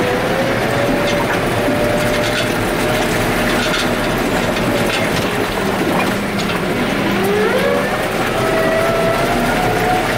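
Case IH Farmall 115U tractor's diesel engine running, heard from inside the cab, with a whine that rises in pitch about seven seconds in as the revs pick up, then holds higher.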